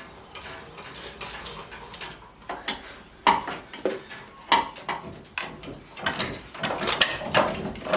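Irregular knocks, clanks and scrapes of metal parts and tools being handled while an engine and subframe are worked loose from under a car, with a few short squeaks. The knocking gets busier and louder in the second half.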